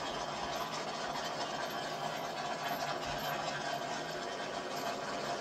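Engine of a hood-scooped Chevy II Nova drag car idling steadily as the car rolls slowly along.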